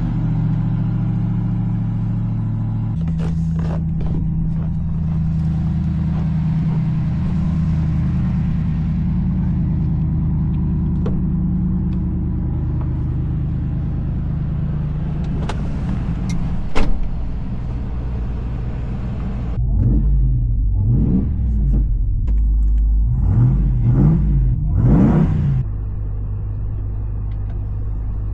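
2022 Ram TRX's supercharged 6.2-litre V8, breathing through an exhaust with aftermarket SLP resonators, idling steadily, then blipped in a quick series of revs from about two-thirds in before dropping back to idle. A sharp click sounds shortly before the revs.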